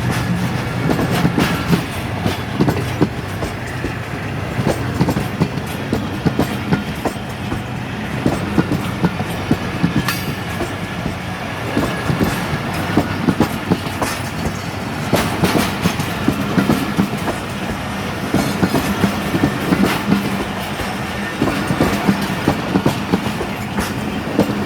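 Pakistan Railways passenger express train pulling out and rolling past at low speed. Its wheels clack over the rail joints in repeated clusters every few seconds, over a steady rumble.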